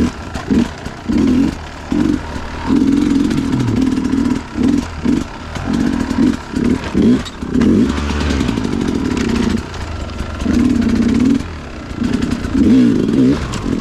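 Two-stroke Sherco enduro dirt bike engine revving in many short, irregular bursts as the throttle is worked on and off.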